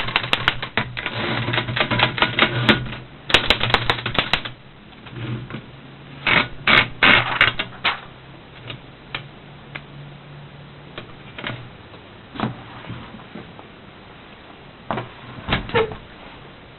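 1917 Remington No. 10 manual typewriter being typed on, its keys striking in a rapid run for about the first four seconds, then in short bursts, then as scattered single strokes.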